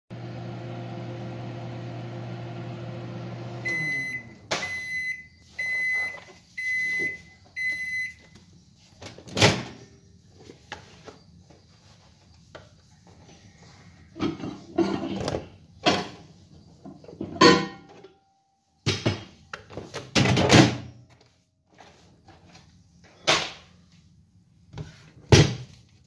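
Microwave oven running with a steady hum that stops a few seconds in, followed by five short high beeps about a second apart signalling the cycle is done. A string of knocks and clatters follows as a glass dish is handled.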